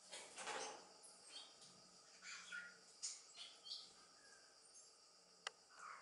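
Faint aviary ambience: a few short, high chirps from small birds, a brief rustle near the start and a single sharp click about five and a half seconds in.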